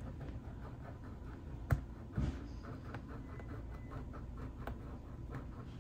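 Scratch-off sticker on a savings challenge book being scratched off, with quick repeated light scratching strokes on the page. A sharp knock about a second and a half in is the loudest sound.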